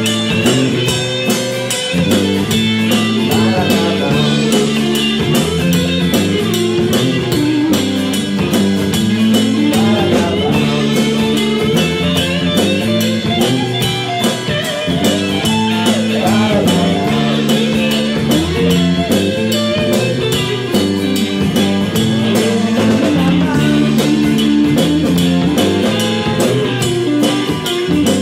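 A live rock band plays an instrumental passage on acoustic and electric guitars, electric bass and drum kit, with a steady drum beat.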